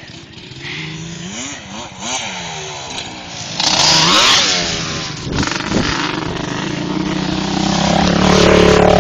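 ATV engines revving through a ride, their pitch rising and falling with throttle and gear changes. It gets loud about three and a half seconds in and builds again near the end as a machine comes close.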